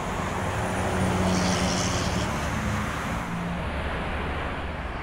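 Highway traffic going past: a steady rush of tyres and engines, swelling about a second in as a vehicle passes with a low engine hum that fades after about three and a half seconds.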